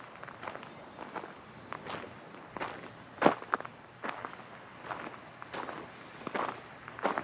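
Crickets chirping steadily in an even rhythm, about two to three chirps a second, with scattered soft clicks and knocks over them, the loudest about three seconds in.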